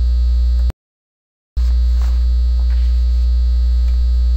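Loud, steady electrical mains hum in the recording, a low drone with a ladder of overtones. It cuts out to dead silence just under a second in and comes back about a second later, as at an edit join.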